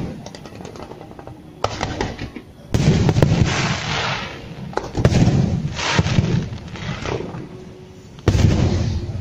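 Aerial firework shells bursting overhead: a series of sudden booms, about five of them, each fading over a second or so, with crackling between.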